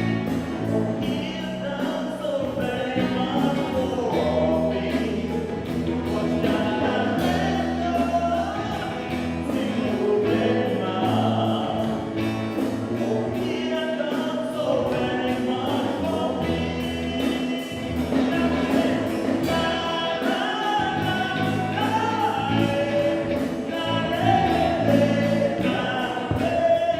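Music: a group of voices singing together over a band with bass and percussion keeping a steady beat.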